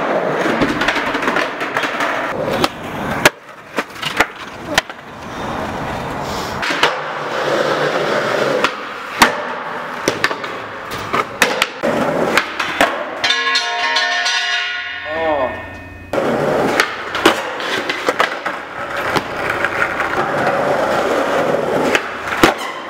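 Skateboard wheels rolling on concrete, broken by many sharp clacks and bangs as the board pops, lands, strikes metal handrails and slams down in bailed tricks. About two-thirds through, a pitched squeal holds for a couple of seconds and then falls in pitch.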